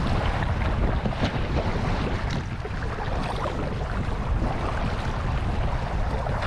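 Steady wind rumble on the microphone mixed with water splashing and lapping against a sailing kayak's hull.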